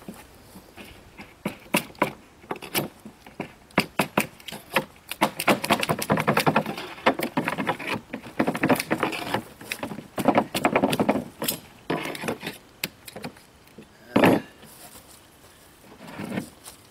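Staples being pried out of reclaimed OSB sheathing with a hand tool: a run of small metal clicks and scraping, crunching wood. The staples sometimes tear the OSB rather than pulling out cleanly. There is one louder knock near the end.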